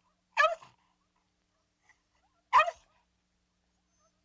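Dog barking twice, two short barks about two seconds apart.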